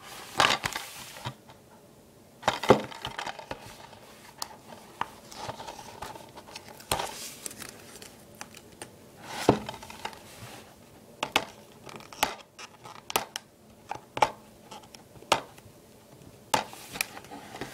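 Hands handling a plastic DVD case: a string of irregular clicks and taps of the plastic, with light rustling between them.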